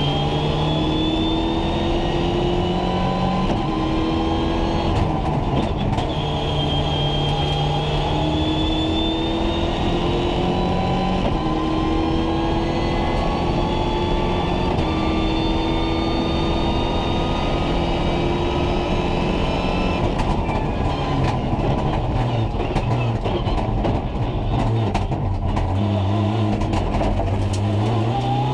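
Rally car engine heard from inside the cockpit under hard acceleration, its pitch climbing through the gears and dropping back at each quick upshift. From about twenty seconds in the revs fall and a run of sharp clicks and crackles comes through, before the engine pulls hard again near the end.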